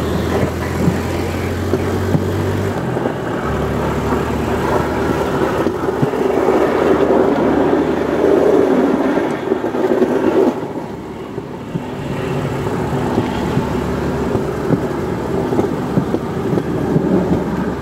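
Motorodillo, a small motorized rail trolley, running along the track: a steady engine hum under dense rolling noise that swells in the middle and eases briefly about eleven seconds in.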